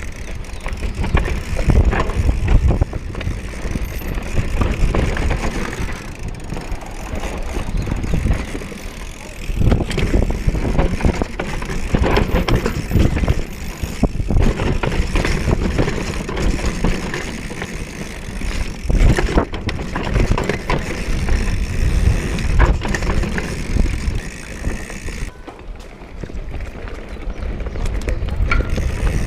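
Mountain bike ridden along a dirt trail: continuous tyre rumble with frequent knocks and rattles from the bike over bumps.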